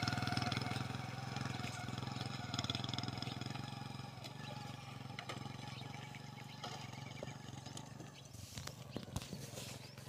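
A motorcycle engine running steadily as the bike rides away, its low hum slowly fading. A few sharp clicks come near the end.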